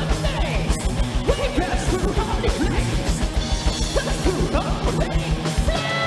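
Heavy metal entrance music with a fast, even kick-drum beat. Near the end the drums stop and a held chord rings on.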